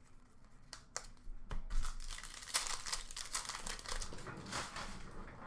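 Upper Deck hockey trading cards handled and flipped through by hand, with crinkling of pack wrappers: a few sharp clicks about a second in, then a busier stretch of rustling and crinkling.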